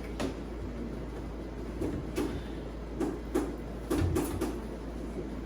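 Light knocks and clunks of refrigerator shelves, drawers and containers being handled during cleaning, about eight irregular bumps, most of them in the second half, over a steady low hum.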